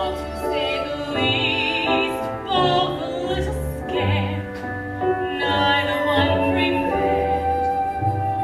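A woman singing a musical-theatre song with vibrato on the held notes, over instrumental accompaniment with a steady bass line.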